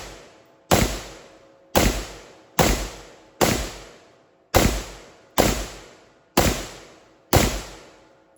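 Eight shots from a 10.5-inch AR-15 carbine in 5.56 firing M855 rounds through an SN-ACH G2 muzzle device, fired one at a time at roughly one per second. Each shot is a sharp crack that fades out over most of a second.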